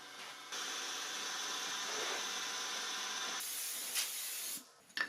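Pantograph's high-speed cutter milling hard maple keys to final size: a steady hissing whir that changes abruptly about three and a half seconds in and stops shortly before the end.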